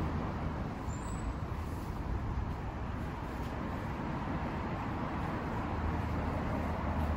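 Aprilia SX125's single-cylinder four-stroke engine idling steadily.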